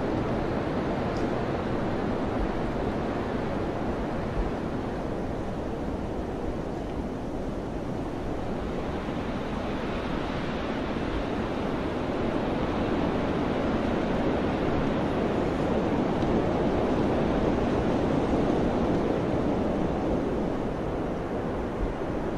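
Wind blowing steadily with a rushing sound, swelling a little stronger about halfway through.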